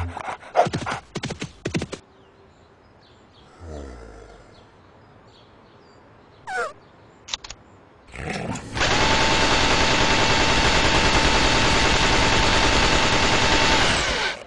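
Multi-barrelled machine gun firing one long continuous burst of about five seconds, with a steady whine underneath. It starts a little past the middle and cuts off abruptly near the end. Before it come a few short scattered sound effects and a quiet stretch.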